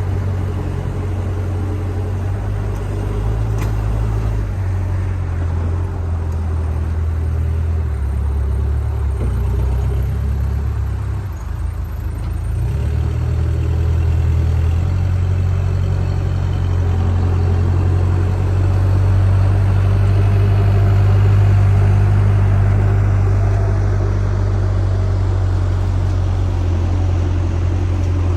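Diesel engine of a JCB backhoe loader running steadily with a deep rumble. It eases off briefly about eleven seconds in, then grows louder again.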